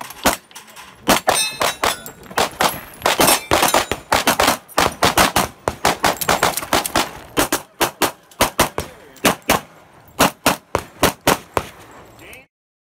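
Rapid pistol gunfire in quick strings of shots with short pauses between, mixed with the clang of steel plates being hit. The sound cuts off suddenly near the end.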